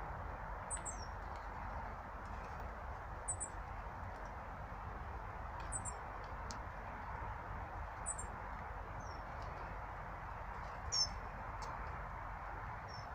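Small birds calling: a short, very high double call repeated about every two and a half seconds, with a few lower falling notes in the second half, over a steady background hiss.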